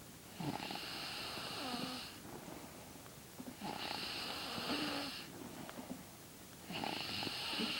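A sleeping person snoring: three long snores, each about a second and a half, coming roughly every three seconds.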